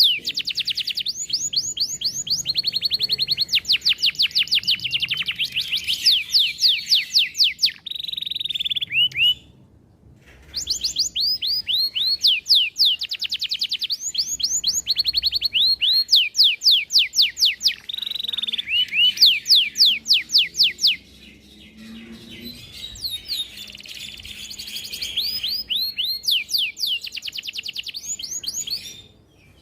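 Domestic canary singing long, fast trills of rapid repeated high notes and rolls, broken by a short pause about ten seconds in and growing softer in the last third.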